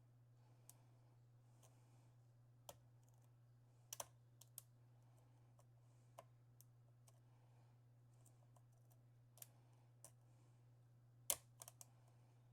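Scattered small metallic clicks and ticks of a lock pick working the pins of an Assa 6000 lock cylinder under a tensioner, irregular and a few seconds apart, with the sharpest click near the end. A steady low hum lies underneath.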